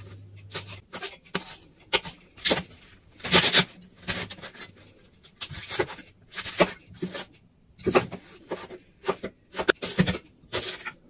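Knife and hands working vegetables on a wooden cutting board: irregular knocks, scrapes and rubs, some brief and some longer rasping strokes.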